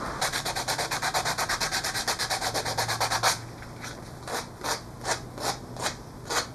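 Sandpaper rubbed by hand on the wooden nock end of a dart or arrow shaft: quick, even strokes of about ten a second, changing a little over three seconds in to slower, separate strokes of about two or three a second.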